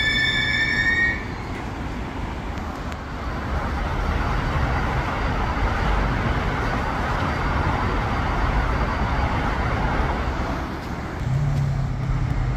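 Israel Railways double-deck passenger train moving past the platform: a high squeal of several pitches cuts off about a second in, then the steady rumble and rush of the moving train, with a low steady hum joining near the end.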